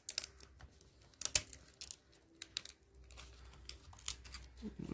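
Irregular small clicks and crinkles of fingers peeling tape and working the display ribbon cable connector on the back of a laptop LCD panel, with the sharpest click about a second in.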